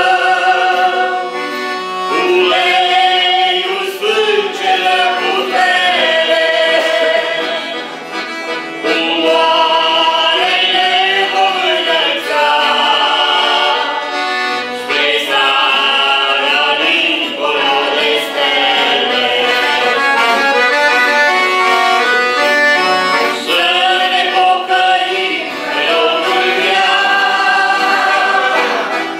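Piano accordion playing while a man and two women sing a religious song together.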